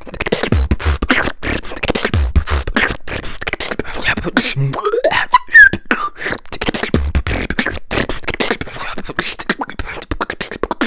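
Solo vocal beatbox routine performed into a microphone: rapid mouth clicks and snares over deep bass kicks. About halfway through, a rising pitch glide ends in a sharp, high squeal, the meow squeak.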